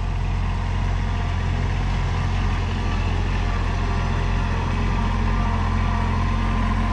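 Excavator engine running steadily at an even, low pitch, with no change in speed.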